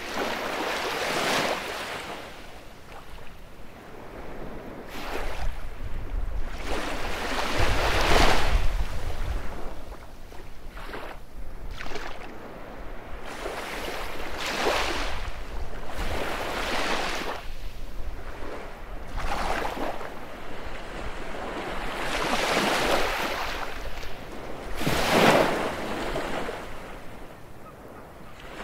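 Baltic Sea surf: small waves breaking and washing onto a beach, a rushing swell every two to three seconds, the biggest about a quarter of the way in and again near the end.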